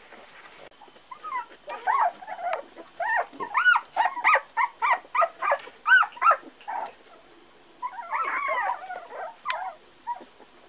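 Four-week-old Parson Russell Terrier puppies yipping and whining: a quick series of short high-pitched calls, each rising and falling in pitch, about two a second, then a jumbled cluster of whines about eight seconds in.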